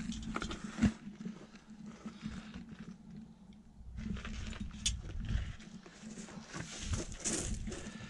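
A man squeezing in through a crawl space opening: scattered scrapes, scuffs and knocks of his body and gear against the entry, over a steady low hum.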